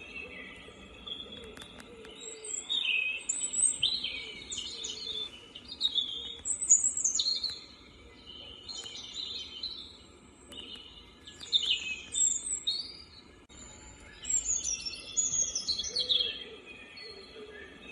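Recorded birdsong, many birds chirping and trilling in overlapping phrases, played through the sunrise alarm clock's small built-in speaker as one of its nature sounds.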